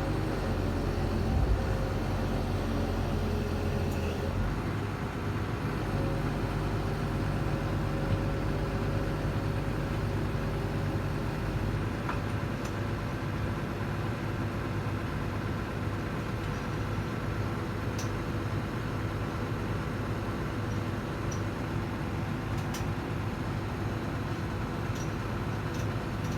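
Steady low drone of a running engine, its tone shifting slightly about five seconds in, with a few faint metallic clicks.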